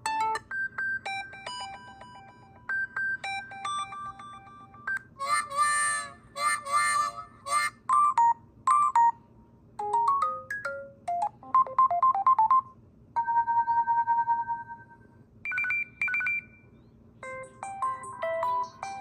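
A series of different short electronic ringtones from an LG Rebel LTE phone's speaker, played one after another: a beeping tune, a burst of bright chimes, a rising run of notes, a fast trill, a held tone and a few short beeps, each lasting a second or a few seconds. A faint low hum sits underneath.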